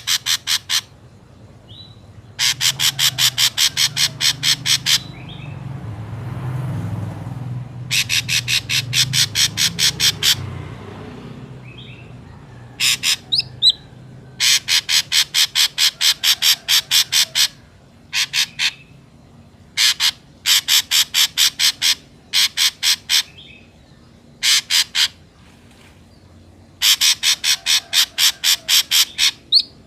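Drongo calls played as a lure: repeated runs of fast, harsh notes, about eight a second, each run lasting one to three seconds with short pauses, and a few brief rising whistles between them. A low hum and a rush of noise sit under the calls through the first third or so.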